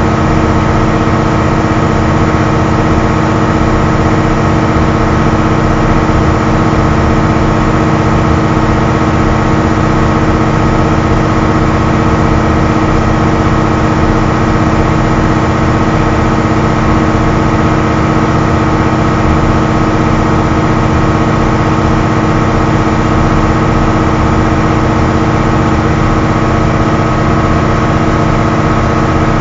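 Diesel engines of a Caterpillar 6040 mining excavator running steadily at a constant speed, with no change in pitch.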